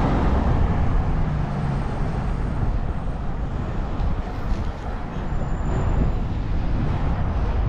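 Downtown street traffic noise heard from a moving bicycle: a steady wash of passing vehicles over a continuous low rumble.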